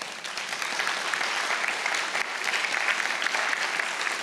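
Audience applauding, dense and steady clapping.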